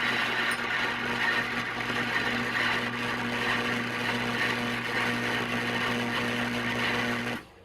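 Home-built 20,000-watt microwave oven running with a lit candle inside, which turns into plasma. A steady low hum sits under an even hissing rush, and both cut off suddenly near the end as the oven is switched off.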